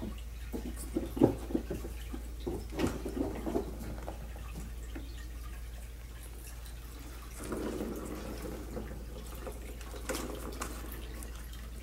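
Kittens pawing at a plastic ball-track cat toy with a cardboard scratch pad. Its ball rolls and rattles in the track, making a run of light clicks and knocks in the first few seconds. There is a rustling stretch about two-thirds of the way in and a few more clicks near the end.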